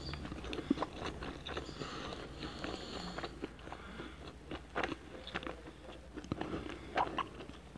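A person chewing a mouthful of food close to the microphone: irregular short wet mouth clicks, a few louder ones about five and seven seconds in.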